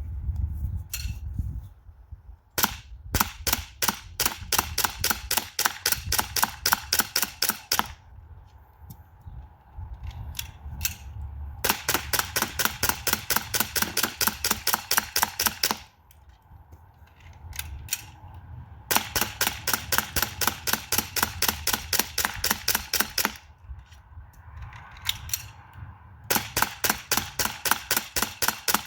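Springfield Armory M1911A1 BB pistol fired in rapid strings of sharp cracks, about four to five shots a second, each string emptying a magazine. Four strings, separated by pauses of a few seconds with scattered clicks as the empty magazine is swapped for a full one.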